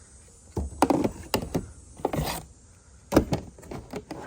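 Plastic vacuum parts and their cardboard packaging being handled while they are unboxed. A series of sharp knocks and clatters, the loudest about a second in and again a little past three seconds, with a short rustle around two seconds in.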